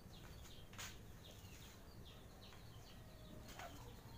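Near silence with faint bird chirps, short falling notes repeated many times, over a low background rumble; two soft clicks stand out, about a second in and near the end.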